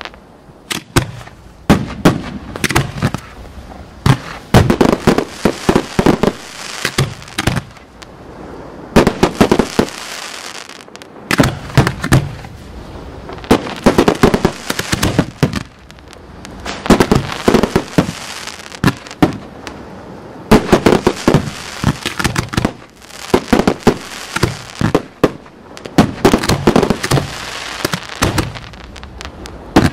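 Aerial fireworks display firing in quick succession: many sharp bangs come in dense clusters every couple of seconds, with brief lulls between volleys.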